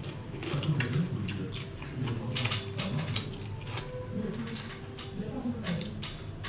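Chopsticks and a metal spoon clicking and scraping against a metal serving tray as food is picked up, in a quick, irregular run of light clicks.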